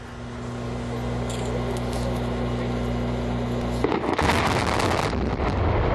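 A steady low hum, then about four seconds in the demolition charges on the steel truss bridge go off: a sudden loud burst of rapid crackling blasts lasting about a second, followed by a continuing low rumble.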